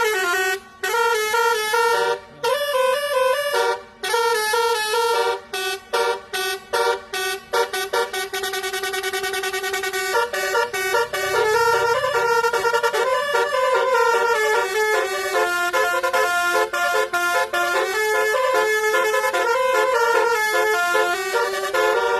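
A bus's basuri melody horn playing a tune. The notes are short and choppy for the first several seconds, then run on as a longer, smoother melody.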